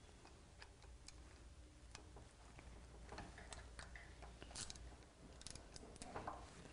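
Faint, scattered clicks of a socket ratchet turning the bolt at the bottom of a motorcycle fork slider.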